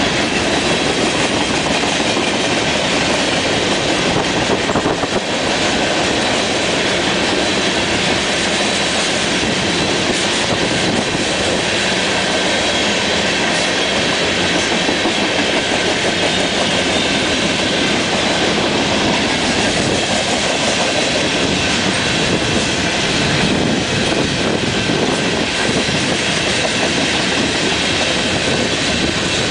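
A long freight train's cars, covered hoppers and tank cars, rolling steadily past: the continuous noise of steel wheels running on the rails.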